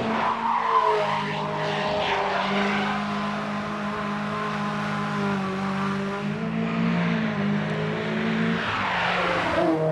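Renault Spider Trophy's mid-mounted Clio Williams four-cylinder, rated at 180 hp, running hard on track at fairly steady revs. Near the end the revs dip and pick up again.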